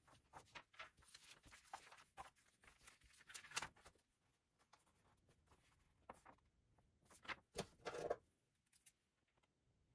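Near silence, broken by faint scattered rustles and light taps of paper and stickers being handled. There are a few slightly louder rustles about three and a half seconds in and again around seven to eight seconds in.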